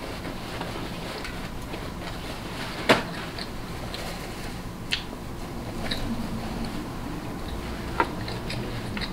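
Close-miked eating of a seafood boil: a few sharp clicks or cracks, the loudest about three seconds in and smaller ones near five and eight seconds, over low steady room noise.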